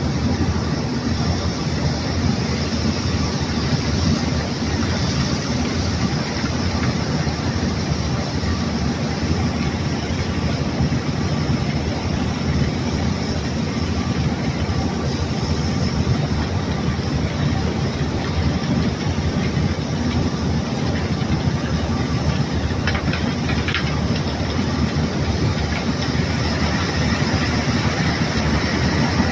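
Steady rushing and rumbling as a barge is unloaded by water jet: a high-pressure hose washes crushed rock and coal down the pile and the wet gravel flows and grinds across the steel hold floor, over a heavy low rumble. Two brief clatters late on.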